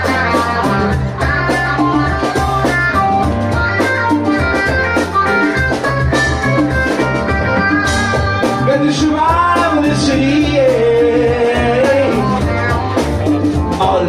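A live rock band playing loudly: a man sings into a microphone over electric guitar and a drum kit. The singing stands out more in the second half.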